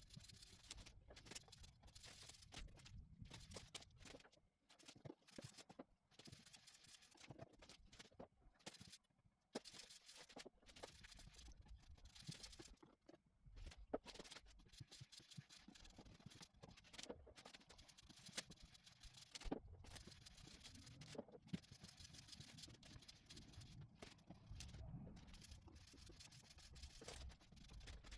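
Faint, irregular scrubbing strokes with short pauses between them, typical of hand work on a wooden surface.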